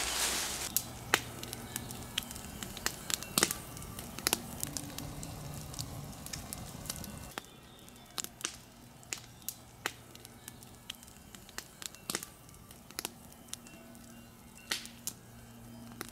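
Quiet end-credits music of faint, held low notes, with scattered sharp crackles and clicks throughout. The low background drops about seven seconds in.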